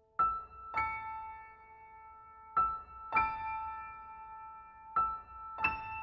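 Background music: a slow, sparse piano melody, its notes struck in pairs every two to two and a half seconds and left to ring.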